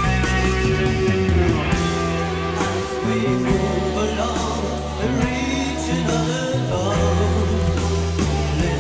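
Hard rock song, studio recording: electric guitars, bass and drums playing, with singing.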